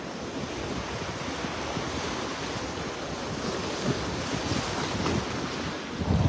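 Sea surf washing in over rocks and sand at the water's edge, a steady rush of breaking water, with wind gusting on the microphone.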